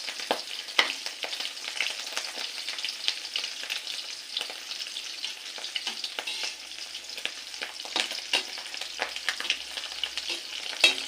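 Tuyo (dried salted fish) frying in hot oil: a steady sizzle with frequent crackles and pops, one sharp pop loudest near the end.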